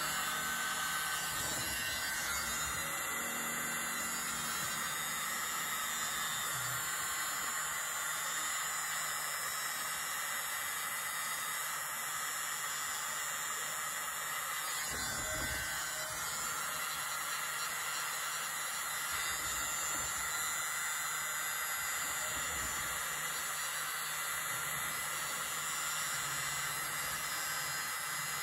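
A miniature battery-powered leaf blower running steadily, a small motor under a constant rush of air, held close over wet acrylic paint on a canvas. There is one soft low bump about halfway through.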